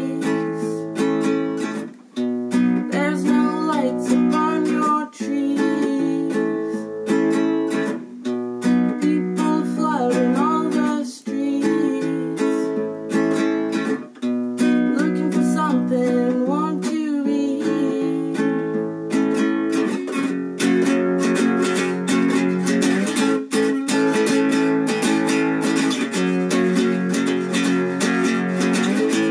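Nylon-string classical guitar playing a song, with a voice carrying a wavering melody over it for roughly the first two-thirds. From about 19 seconds in, the guitar is strummed more densely and steadily on its own.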